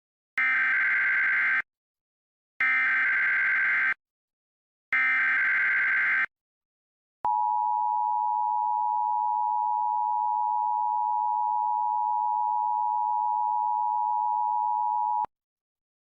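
Emergency Alert System tones for a Required Monthly Test: three short bursts of the SAME digital header data, then the two-tone attention signal (853 and 960 Hz sounded together) held steady for about eight seconds and cutting off suddenly.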